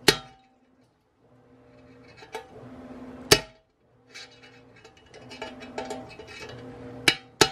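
Sharp metallic knocks, four loud strikes with smaller clicks between, as the heated Sur Ron Light Bee swingarm is banged from the bottom to drive out a stuck pivot bearing. A steady hiss and low hum run underneath.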